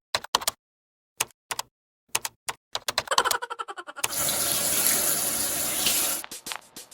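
Scattered sharp clicks and taps with dead silence between them, then about two seconds of steady hiss like water running from a tap, then a quick, even run of clicks near the end.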